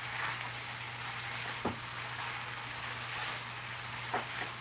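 Vegetables and shredded chicken sizzling steadily in a hot metal pot as they are stirred and folded with a spatula, with a few short knocks of the spatula against the pot.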